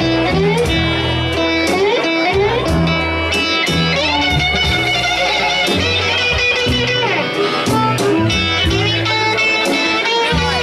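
Live blues band playing an instrumental passage: electric guitar with bending notes over a steady bass line and drums with cymbals.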